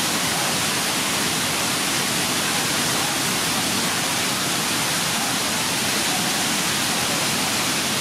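Waterfall pouring onto rocks close by: a steady, unbroken rush of water.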